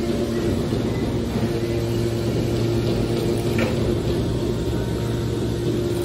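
Hydraulic scrap-metal baler running: a steady hum and rumble from its electric motor and hydraulic pump. A brief higher squeak comes about three and a half seconds in.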